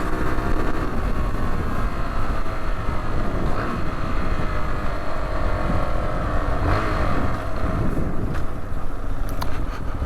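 A Rieju Adventura 125's single-cylinder engine running as the motorcycle rides along, its note rising about two-thirds of the way through, over heavy wind noise on the helmet microphone.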